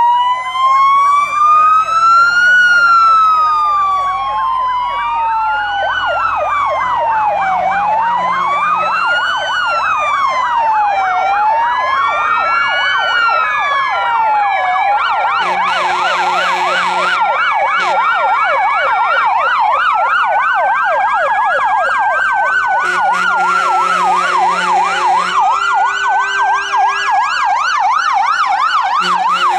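Several fire engine sirens sounding together: slow rising and falling wails overlap a fast yelp, with stepped two-tone patterns about the middle. Low, steady horn tones join in a few times in the second half.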